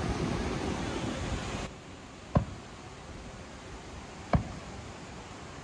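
Aerial firework shells bursting: a dense rumbling hiss of noise cuts off abruptly just under two seconds in, followed by two single sharp bangs about two seconds apart.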